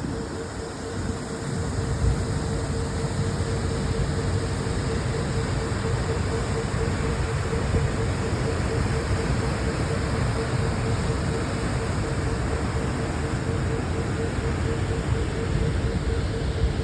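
Waterfall rushing steadily, heaviest in the low range, with a steady hum running alongside it.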